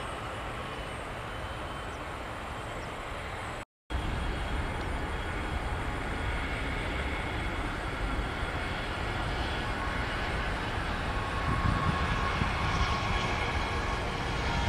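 Jet engines of a Bombardier CRJ regional jet taxiing past, a steady noise with a whine of several high tones that grows louder after about four seconds. Before that, a steadier, quieter engine noise is heard.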